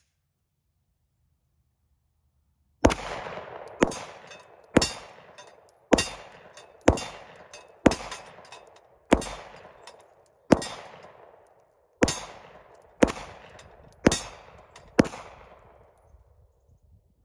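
Glock 17 9mm pistol fired in a slow string of twelve shots, about one a second, starting about three seconds in. Rounds strike steel plate targets, and each shot trails off in a short ringing decay.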